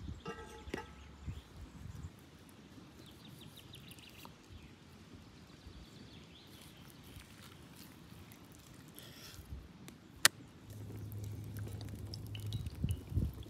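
A cast-iron pan is set down on the fire stones with a short ringing clank, followed by quiet open-air ambience with faint bird chirps. About ten seconds in there is a single sharp click. Near the end, olive oil pours into the pan with a steady low sound.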